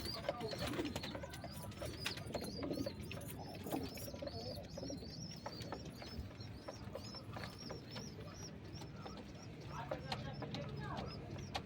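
Domestic pigeons cooing, with a steady run of short high chirps several times a second and scattered light clicks.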